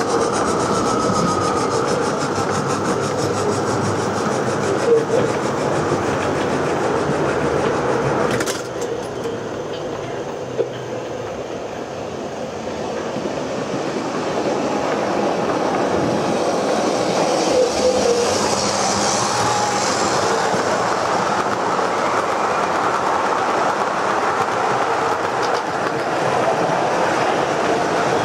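Model trains running on the layout's track, a steady sound of wheels and mechanism on the rails. A sharp click comes about eight seconds in, the sound then drops, and it grows again as a model Metropolitan Railway Bo-Bo electric locomotive approaches.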